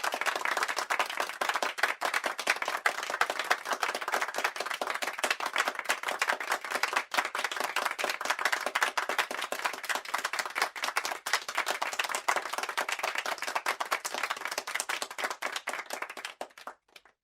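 Applause sound effect: many people clapping, starting abruptly, thinning a little toward the end and cutting off just before the end.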